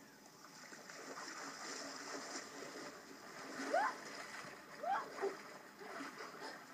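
Water splashing as a person wades into a lake and plunges in, followed by a few short, rising vocal cries from about halfway on.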